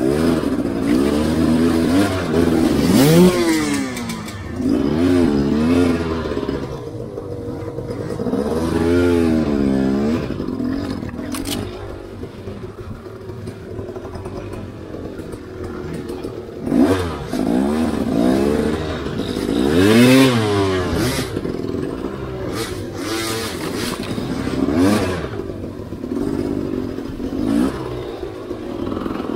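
Enduro motorcycle engine revved in repeated short blips that rise and fall back, with a lower steady running sound in between, while the bike is worked slowly over creek-bed rocks.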